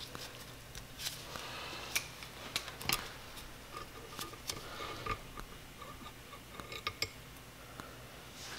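Irregular light metallic clicks and clinks of a wrench and loosened cylinder head bolts against a motorcycle engine's aluminium cylinder head, as the head bolts are worked out by hand.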